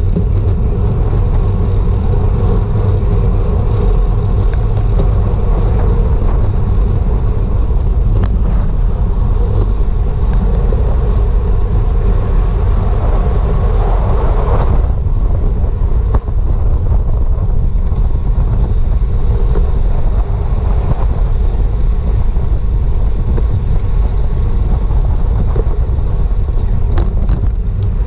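Wind buffeting the microphone of a bicycle-mounted action camera during a road race at speed: a heavy, steady low rumble. About halfway through the noise swells over a few seconds, then drops away suddenly.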